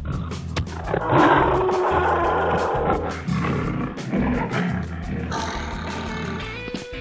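Background music with a loud animal-like roar sound effect about one to three seconds in.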